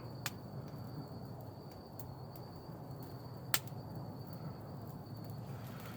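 Wood fire burning with a low steady rush and a few sharp crackling pops, the loudest about three and a half seconds in. A thin steady high tone runs underneath.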